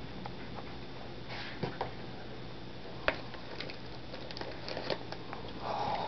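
Sleeping puppy hiccuping: a few small, sharp clicks at irregular intervals, the loudest about three seconds in.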